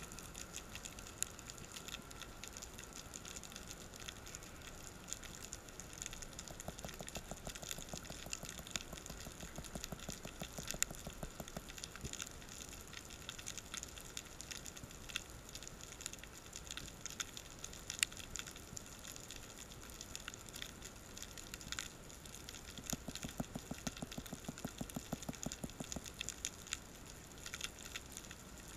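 Underwater ambience picked up through a camera housing: a steady hiss with many scattered sharp clicks and crackles. Two stretches of rapid low pulsing come through, about a quarter of the way in and again near the end.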